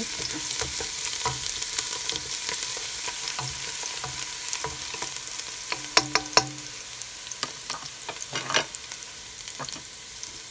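Minced garlic sizzling and crackling in hot oil in a stainless steel pot as a wooden spatula stirs it, with a few sharp knocks about six and eight and a half seconds in.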